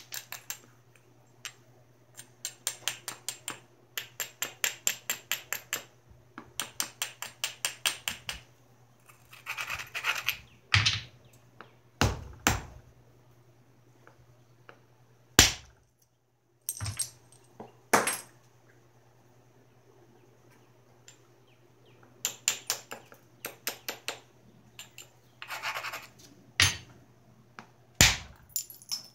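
Flintknapping a Georgetown flint biface. There are runs of quick, even scraping strokes as the edge is abraded, and between them single sharp cracks as a billet strikes flakes off the stone, about eight in all.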